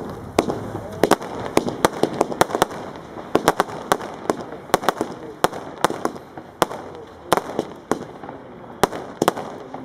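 Weco 'Magma Star' firework cake (a multi-shot consumer battery) firing shot after shot: a rapid, irregular string of sharp bangs, about three a second.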